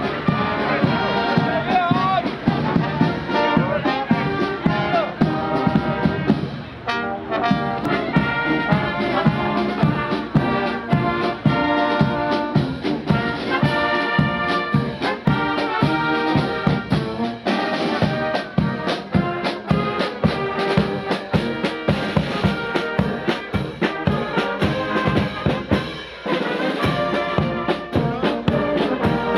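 Marching brass band of trumpets, tubas, saxophones and clarinets playing a march over a steady drum beat, with short breaks in the music about seven and twenty-six seconds in.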